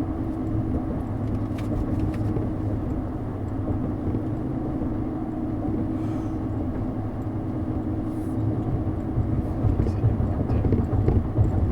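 Road and engine noise heard inside a moving car's cabin: a steady low rumble with a hum, growing a little louder with a few knocks near the end.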